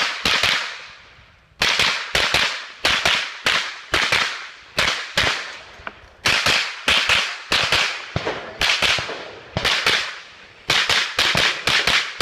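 An AR-style semi-automatic carbine firing rapidly, about thirty sharp shots, mostly in quick pairs, each cracking and trailing off briefly. There is a pause of about a second and a half near the start, then steady fire with a fast run of shots near the end.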